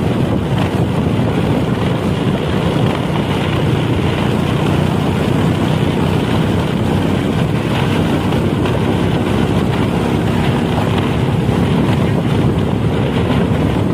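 Steady wind buffeting the microphone over the running noise of a vehicle on the move.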